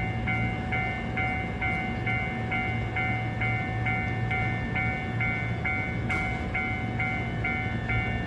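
Japanese level-crossing warning bell ringing steadily, an even electronic ding repeating about two and a half times a second, over a low rumble. A single sharp click sounds about six seconds in.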